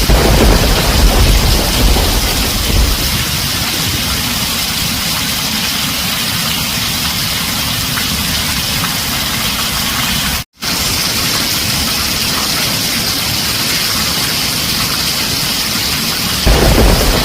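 Heavy rain pelting a tin roof in a steady hiss. Thunder rumbles low at the start, fades after about three seconds, and rolls in again near the end. About ten seconds in, the sound cuts out completely for a split second.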